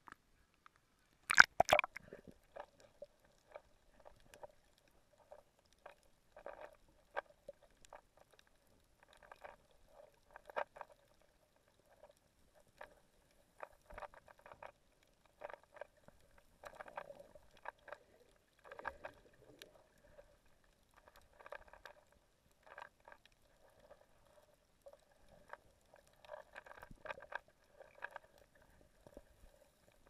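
A splash about a second and a half in as the camera goes under the sea surface, then muffled underwater sound: faint, irregular clusters of clicks and crackles over a low gurgle.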